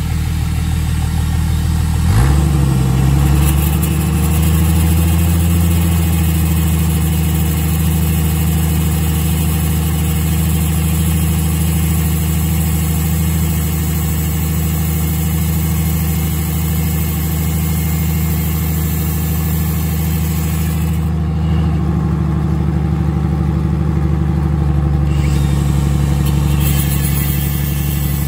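Jeep Cherokee XJ engine running steadily in gear, spinning the transfer case output shaft, while an angle grinder cuts into the spinning steel shaft. The engine note rises briefly about two seconds in. The grinding pauses for a few seconds about three-quarters of the way through, then starts again.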